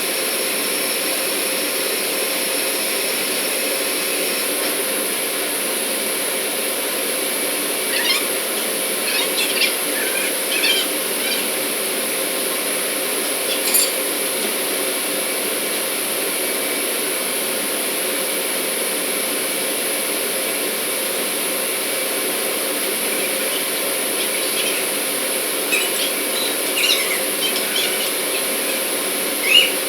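Steady, loud industrial machinery noise with a faint constant hum in it. Brief high-pitched squeaks come in small clusters about 8 seconds in, again around 14 seconds, and several more near the end.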